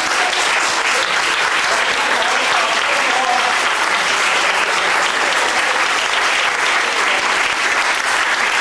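Audience applauding, with steady, dense clapping.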